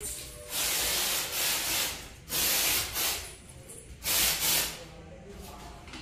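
HIT aerosol insect-spray can hissing in a series of short squirts, about six bursts of half a second or so each.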